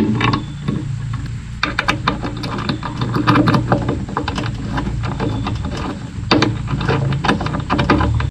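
Hand ratchet wrench clicking quickly and unevenly while tightening the nuts on an LED work light's mounting bolt, over a steady low hum.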